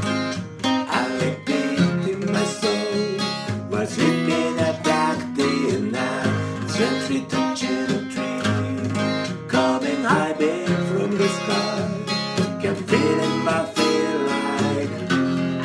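Steel-string acoustic guitar with a capo, strummed in a steady rhythm of chords.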